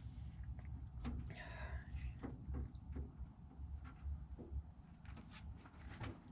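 Scattered light clicks and knocks of metal parts being handled inside an M35A2 truck door as the door latch is held and positioned by hand, over a low steady rumble. A brief faint voice sound comes about a second and a half in.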